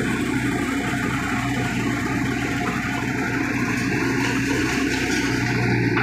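Hitachi tracked excavator's diesel engine running steadily with a constant low hum.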